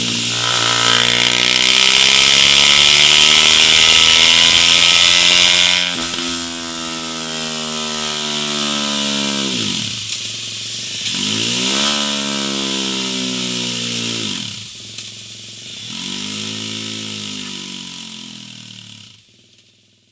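BMW G 310 R's single-cylinder engine being revved through a MIVV GP Pro aftermarket exhaust. It is held at high revs for about six seconds, then blipped up and let fall back several times, and it fades out near the end.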